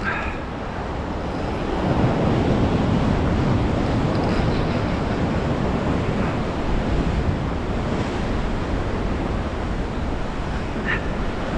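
Ocean surf washing and breaking over rocks, with wind on the microphone; the wash swells louder about two seconds in.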